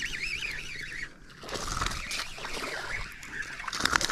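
A hooked barramundi splashing at the water's surface as it is reeled in, with the loudest splash just before the end. A high warbling whistle sounds in the first second.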